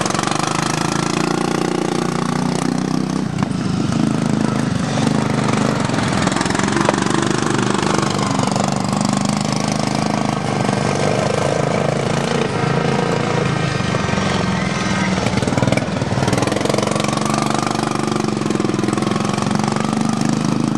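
Racing lawn mower's small engine running hard, its pitch rising and falling as it revs up and eases off in turn.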